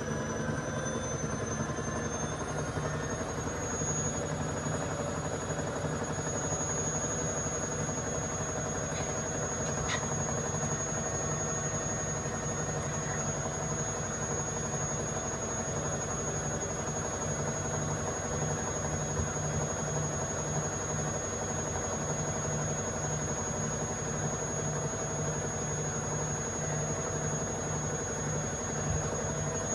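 Candy washing machine on its spin cycle: the motor's whine climbs in pitch over the first few seconds and then holds steady over an evenly pulsing rumble from the drum, with a single click about ten seconds in. The owner complains that it is vibrating and knocking on spin again.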